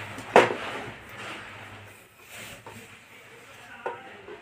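A sharp knock about half a second in, then about a second of rubbing and handling noise and a small click near the end, as an electricity submeter is screwed tight onto its mounting board.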